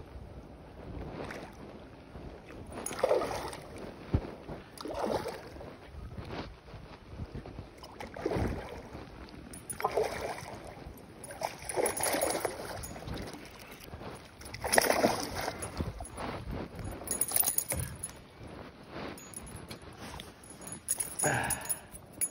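Hooked peacock bass splashing and thrashing at the water's surface while being reeled in, in separate surges every one to three seconds.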